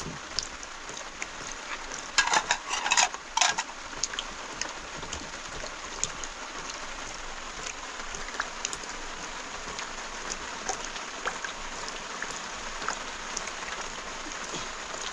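Rain falling steadily, a dense pattering hiss with scattered drip ticks. A short run of louder clattering knocks stands out about two to three and a half seconds in.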